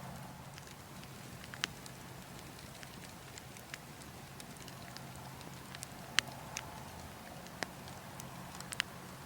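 Logs burning in a fire, crackling with scattered sharp pops over a steady low rush of wind; the loudest pop comes about six seconds in.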